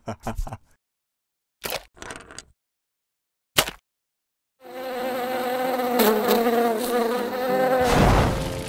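A few short taps and clicks with silence between them. About halfway in, a steady, wavering buzzing drone starts. Near the end a sudden loud, noisy whoosh comes in as a Lego brick flame appears.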